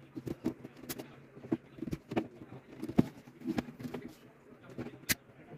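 Laptop battery pack's plastic case being pried open with a small screwdriver: irregular clicks and small snaps as the seam and clips give, with one sharper crack near the end.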